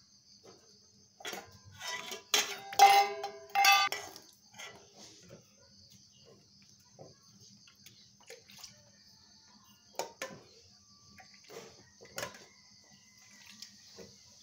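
A metal ladle clanking and scraping against metal cooking pots and bowls, a burst of ringing clatter in the first few seconds, then a few single light taps.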